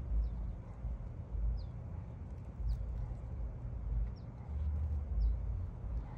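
Low, uneven rumble of wind buffeting the microphone, with faint short bird chirps every second or so.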